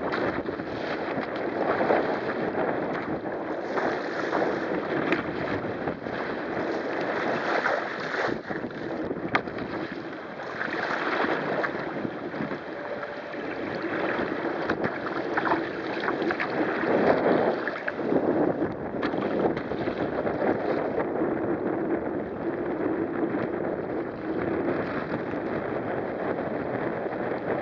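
Water rushing and splashing along a sailing kayak's hull under way, with strong wind buffeting the microphone. The noise is continuous and rises and falls in loudness.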